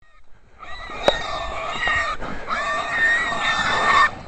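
Feral hog squealing twice, each a long, high-pitched squeal lasting about a second and a half: the distress squeal of a hog caught by hunting dogs. A sharp click sounds near the start of the first squeal.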